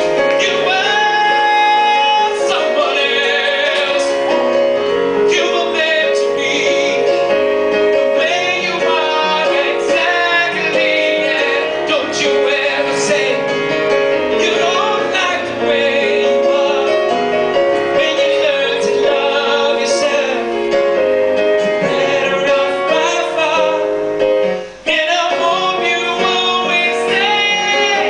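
A live pop song: a man singing into a handheld microphone, with electric keyboard accompaniment.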